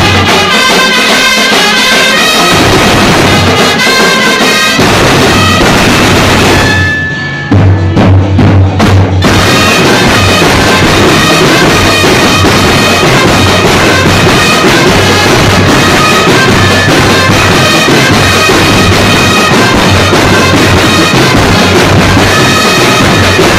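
Drum and bugle corps playing a festival street-dance beat: massed snare and bass drums with crashing cymbals under a brass melody. About seven seconds in the music breaks off briefly with a single held high note, then the drums come back in heavily.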